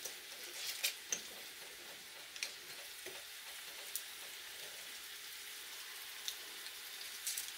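Low, steady sizzle of food frying in oil in a skillet, with a few small sharp clicks and crinkles as chicken bouillon cubes are unwrapped over a pot of beans.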